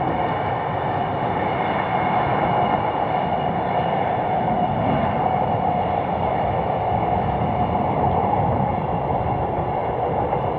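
Diesel locomotive hauling an unpowered EMU-250 high-speed trainset on delivery: a steady run of engine and rolling wheel-on-rail noise that holds level throughout.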